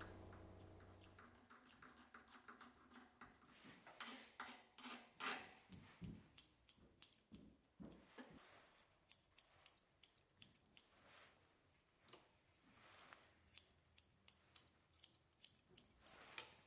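Faint snips of straight grooming scissors cutting a Yorkshire Terrier's leg coat, short sharp clicks coming irregularly, a few a second.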